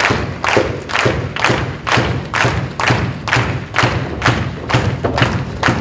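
Audience clapping in unison in a steady rhythm of about two claps a second.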